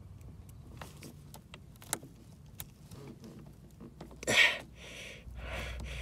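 Small plastic and metal clicks and rattles of a Honda Accord's transmission shifter cable end being worked at the shift box by hand, with a louder rustle about four seconds in. The cable does not come free; its strong spring lock holds it.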